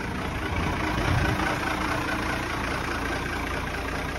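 Ford L8000 ten-wheel dump truck's engine idling steadily.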